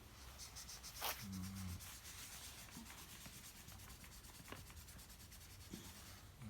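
Faint rubbing and rustling, with a click about a second in followed by a short low hum.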